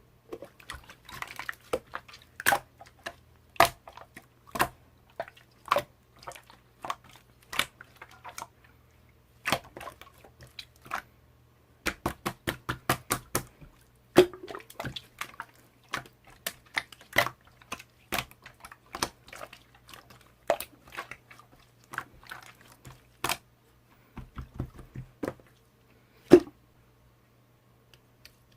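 Slime being squished and poked by hand, giving irregular sharp clicky pops of trapped air with a few duller squelches. About one pop a second at first, then a quick flurry of pops a little before the middle.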